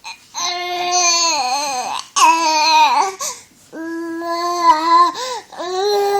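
A 20-week-old baby babbling: long, held, pitched vocal sounds, four of them one after another with short breaks for breath.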